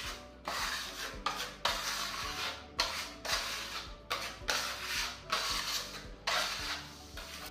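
A putty spreader blade scraping a fresh coat of wall putty across a plastered wall, in about nine separate strokes of roughly half a second each, with short pauses between them.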